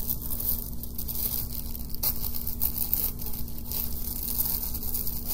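Paper wrapping rustling and crinkling in short, irregular crackles as a small package is unwrapped by hand, over a steady hiss and a low steady hum.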